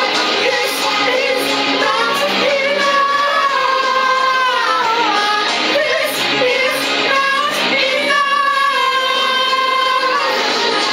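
A small group of voices singing together in harmony, holding long notes that slide in pitch.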